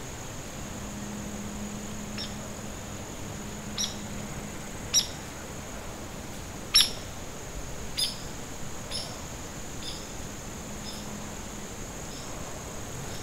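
A small bird giving short, sharp chip calls, about a dozen spaced irregularly, the loudest about seven seconds in, over a steady high-pitched hiss.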